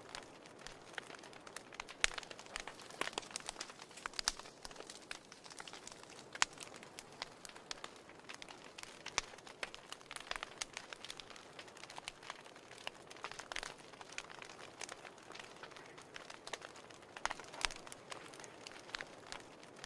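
Wood fire burning in a fireplace, crackling with frequent irregular sharp pops and snaps over a soft steady hiss of the flames.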